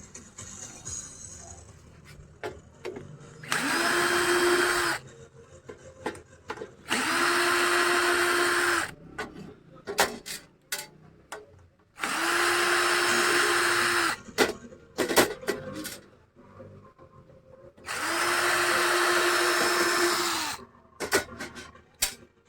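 Electric drill-driver running in four separate runs of about one and a half to two and a half seconds each, backing out screws to open an amplifier's cabinet. Its motor winds up at the start of each run and down at the end. Small clicks and clatter of handling come between the runs.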